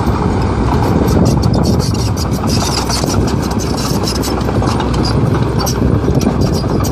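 Excavator engine running steadily, a continuous loud machine noise.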